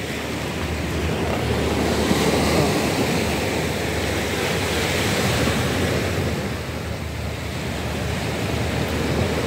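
Sea waves washing onto a rough shore in a steady rush that swells and eases, with wind buffeting the microphone.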